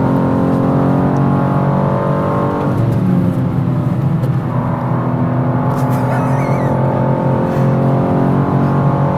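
2023 BMW M2's twin-turbo straight-six pulling hard at high speed, heard inside the cabin: a loud, steady engine note with a brief break about three seconds in, then steady again.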